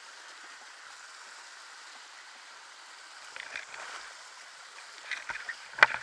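A dirt bike riding up a wet rocky stream bed, heard as a steady rush with no clear engine note, then several sharp knocks near the end as it bumps over the rock.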